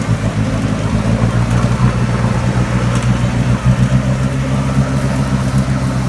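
Off-road vehicle's engine running steadily at low speed on a rough trail, a constant low drone with some rattle over it.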